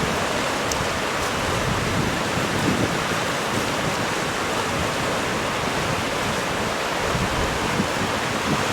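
Steady rushing noise of rain falling.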